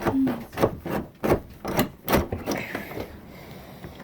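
Irregular knocks and scuffs, about a dozen in the first two and a half seconds, then fainter rustling.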